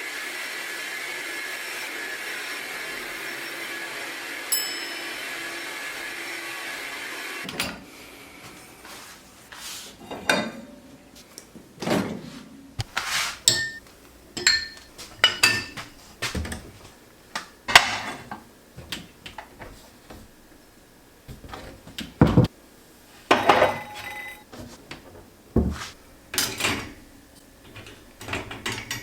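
A steady hiss that cuts off suddenly about seven seconds in, then irregular knocks and clinks of dishes and kitchenware being handled and set down.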